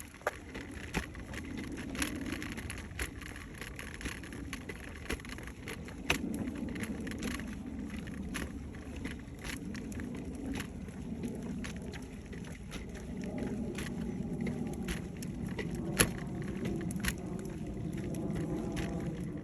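Car traffic going by, a steady low noise that swells and fades, with scattered light clicks.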